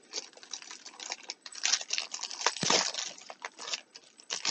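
Rustling, crinkling and light tapping of packaging as items are handled and lifted out of a subscription box, loudest around the middle.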